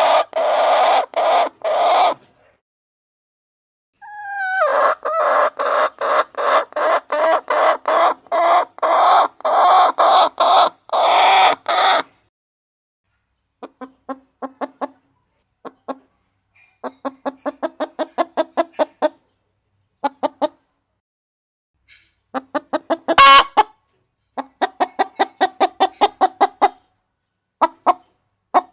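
Hen clucking sound effect: runs of quick, repeated clucks broken by short silent gaps, with one louder, sharper call about 23 seconds in.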